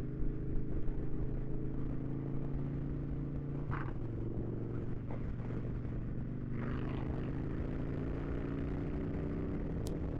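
Harley-Davidson Dyna V-twin engine running while the motorcycle cruises on the road, with a low rumble of wind and road noise. The engine note drops about four seconds in, then shifts again a couple of seconds later and holds steady.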